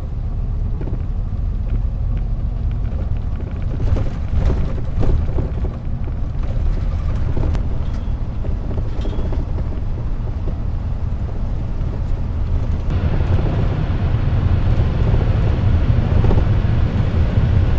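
Inside a highway coach under way: a steady low rumble of engine and road noise. About two-thirds of the way through it grows louder, with more hiss.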